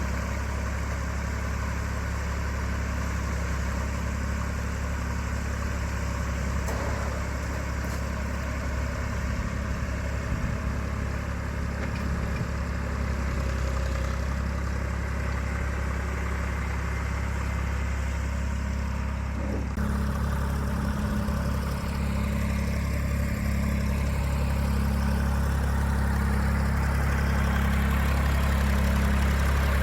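Diesel engine of farm machinery running steadily, its sound changing abruptly about twenty seconds in.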